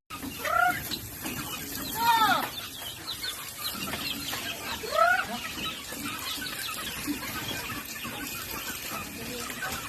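Chickens calling: three loud squawks that rise and fall in pitch, about half a second, two and five seconds in, over a steady chatter of small high peeps.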